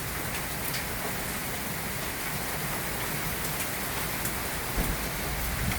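Heavy rain with hail coming down hard: a steady hiss with scattered sharp ticks of hailstones striking, and a short low thump about five seconds in.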